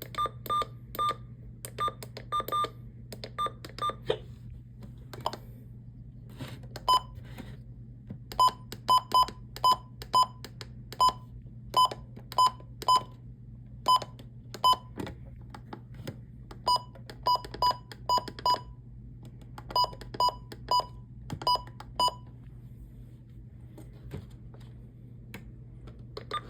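Weather alert radios giving short key-press beeps as their buttons are pressed over and over to change settings, in irregular runs with pauses between, over a low steady hum.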